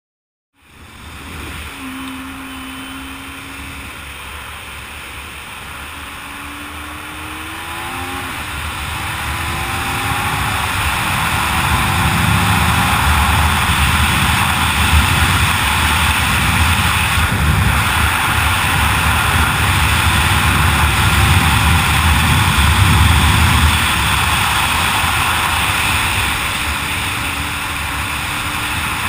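Sport motorcycle riding at speed: its engine revs up through several gear changes in the first dozen seconds, under loud rushing wind on the bike-mounted camera's microphone that builds as the bike gathers speed and then holds steady.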